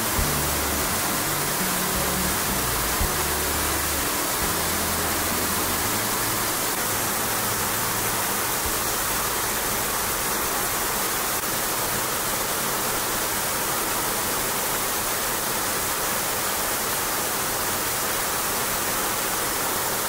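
Waterfall crashing onto rock close by: a loud, steady rush of water. Low music notes sit under it for the first several seconds.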